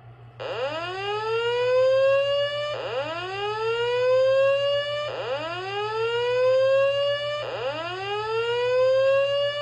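Slow-whoop evacuation tone from a System Sensor SPSR fire alarm speaker strobe: four rising whoops, each about two and a half seconds, played back to back between repeats of the voice evacuation message.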